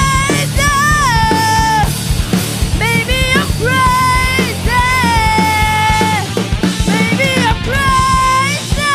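Rock band playing a song: a singer holds long notes that slide into and out of pitch, over a drum kit and bass.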